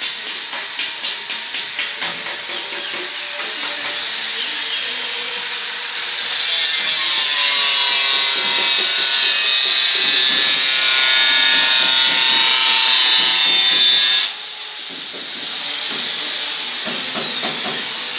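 Electric angle grinder running with a high whine while working copper sheet, its pitch sagging and recovering as it bites. A harsher, denser stretch in the middle ends with a sudden drop in level about two-thirds of the way through.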